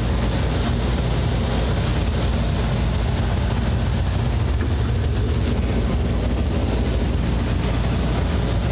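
A steady low mechanical hum with an even rushing noise over it, like running machinery, and a few faint clicks.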